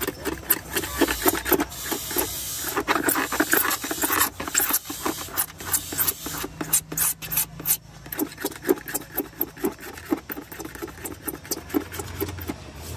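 A small blade scraping dried white filler off a plastic car tail light lens in quick, repeated short strokes.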